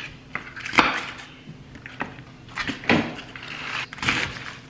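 Raw cabbage being broken apart and cut with a large serrated knife on a plastic cutting board: a few separate crisp crunches and knocks, with quieter handling between them.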